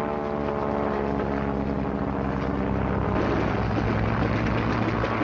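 Propeller aircraft engine running steadily, its sound growing louder and rougher about three seconds in.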